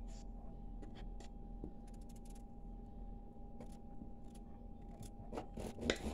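Faint clicks and scrapes of small knives cutting raw potatoes into chunks in hand and on a wooden cutting board, scattered and irregular, a little louder near the end, over a steady faint hum.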